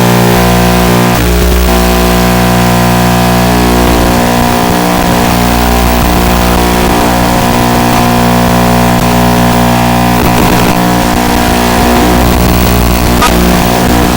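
Background music: a loud, sustained chord or drone held steady with little change.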